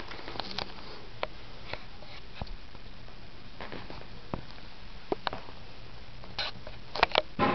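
Handling noise: scattered faint clicks and light rustles over a low steady hum, with a few louder sharp clicks near the end.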